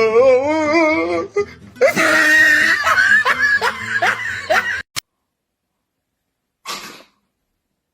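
Laughter with music behind it, cutting off suddenly just past halfway; after a short silence comes one brief noisy sound.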